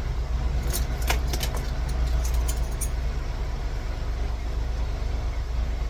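Small sharp metal clicks and ticks of keys, lock pins and tools being handled while rekeying a pin-tumbler lock cylinder, a cluster of them in the first three seconds. A steady low hum runs underneath and is the loudest part.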